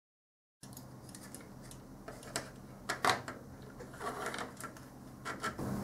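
Faint irregular clicks and light taps of a printed circuit board being worked loose from a plastic instrument case and handled on a wooden desk, starting after half a second of silence, the sharpest knock about three seconds in.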